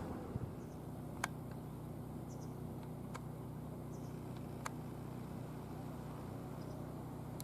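A steady low mechanical hum, with three brief sharp clicks or chirps about one and a half seconds apart.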